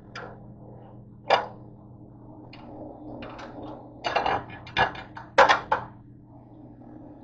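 A glass pan lid and spatula being handled on a stovetop: a string of knocks and clinks, loudest between about four and six seconds in. Underneath is a steady low hum and the faint sizzle of potato slices frying in butter.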